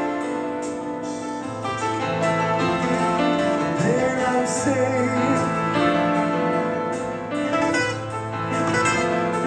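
Rock band playing live: a slow passage of sustained keyboard chords over held bass notes, with a violin playing.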